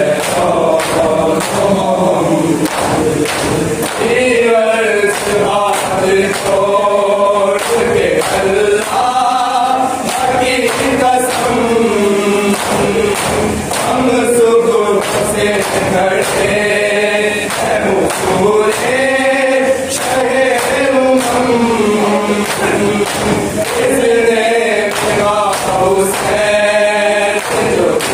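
A group of men chanting a noha, a Shia Muharram lament, with rhythmic slaps of hands beating on chests (matam) keeping the beat.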